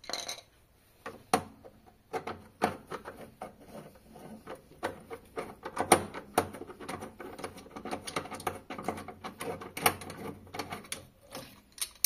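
Rapid, irregular clicking and light knocks of hand tools on metal and plastic as the screws holding a washing machine's drain actuator are undone. The clicks are sparse at first and become dense from about two seconds in.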